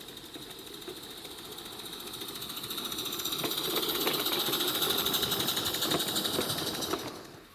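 Small live-steam garden-railway locomotive chuffing rapidly as it passes close by hauling a coach. The sound grows louder, then drops away suddenly near the end.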